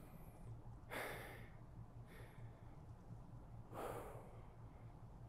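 A man breathing hard to recover after a set of pull-ups: two deep breaths, one about a second in and one near four seconds, with a softer breath between them.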